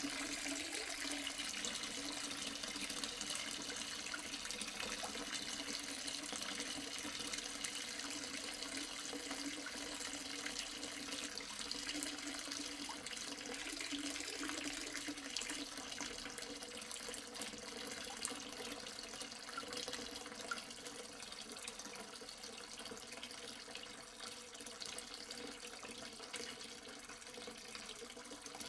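Soft, steady rain, a dense patter of many small drops.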